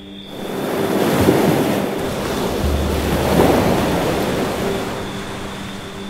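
Sea surf: a wave breaking and washing up the beach, swelling about half a second in and fading away toward the end. A faint steady drone of background music runs underneath.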